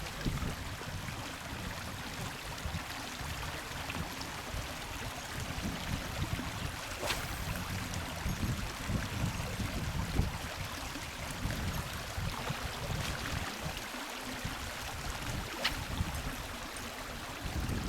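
Steady rush of flowing river water, with an uneven low rumble from wind on the microphone and a couple of faint clicks.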